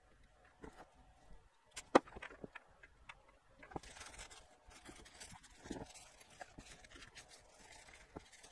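Light handling noises: a sharp click about two seconds in, then soft rustling and rubbing from a paper tissue wiped over an amplifier circuit board from about four seconds on.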